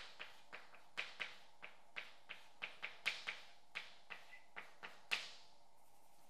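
Chalk tapping and scratching on a blackboard during writing: a quick, uneven run of sharp taps, about three a second. The loudest tap comes about five seconds in, and then the writing stops.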